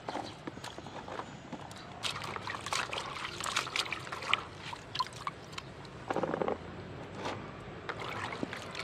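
Hands swishing and rubbing cauliflower florets in a plastic basin of water, with irregular small splashes and trickles as the vegetables are washed.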